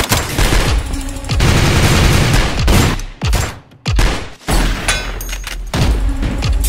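Bursts of rapid gunfire sound effects, with short breaks between them, over background music.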